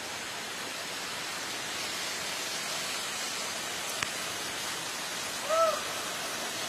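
Steady rushing noise of a flooded river running over rocks and rapids. A single click about four seconds in, and a little later a brief call that rises and falls in pitch, the loudest sound.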